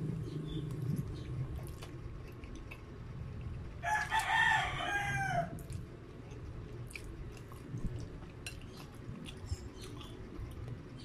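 A man chewing and eating spaghetti close to the microphone, with scattered small clicks from the fork. About four seconds in a rooster crows once, for about a second and a half, louder than the eating.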